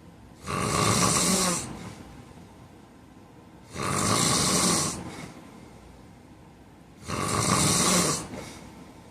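A man snoring in his sleep: three long snores, each about a second long and a little over three seconds apart, with quieter breathing between them.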